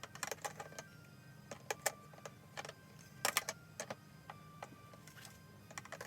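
Irregular clicks and clatter of objects being handled, in clusters with the loudest about two and three seconds in, over faint background music.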